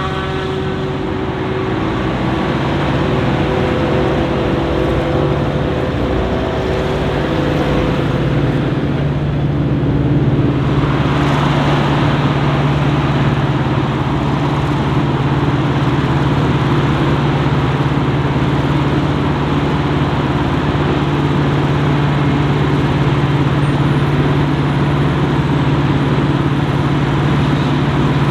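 Heavy diesel farm machinery running steadily during maize chopping: the engines of a forage harvester and silage-wagon tractors. A couple of higher engine tones fade out in the first few seconds, and the sound grows denser and louder about ten seconds in.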